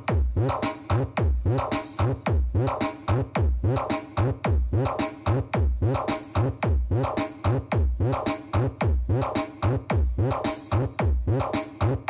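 Electronic dance music played loud through a mobile sound system's speakers, with a heavy drum-machine kick about twice a second and falling bass notes on each beat.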